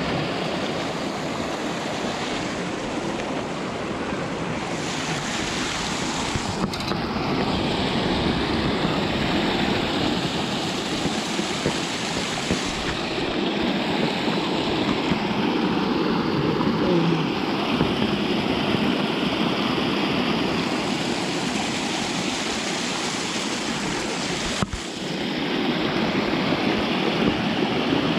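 Steady rush of running water, as from a creek riffle or spring outflow. It breaks off abruptly twice and carries straight on.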